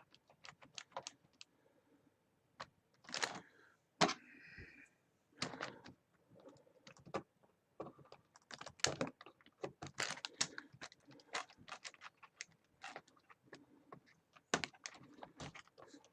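Irregular plastic clicks, taps and rattles of a gaming keyboard's parts being handled and pried apart as its LED light strip is worked loose.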